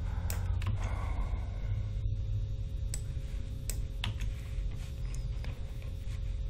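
Scattered clicks of a computer mouse, about half a dozen, over a steady low hum.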